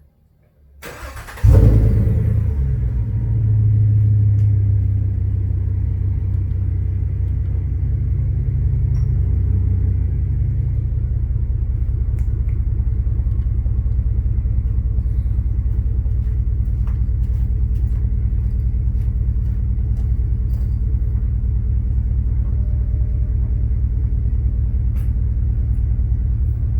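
Dodge Challenger R/T's 5.7-litre Hemi V8 with a mid-muffler delete starting up: a brief crank, then it catches with a loud burst and idles high for several seconds before settling to a lower, steady rumbling idle about ten seconds in.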